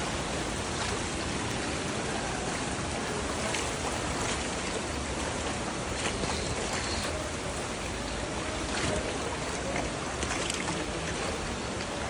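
Steady rush of water from a shallow rocky stream in a gorge, with a few faint sharp clicks scattered through.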